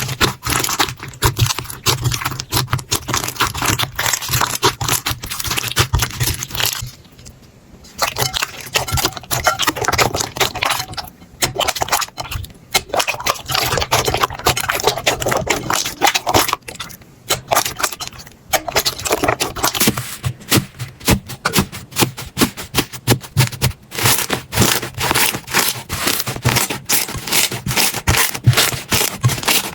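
Slime being squeezed, stretched and poked by hand: dense crackling and popping, with short breaks about seven and seventeen seconds in. From about twenty seconds in the pops come in a quicker, more even run.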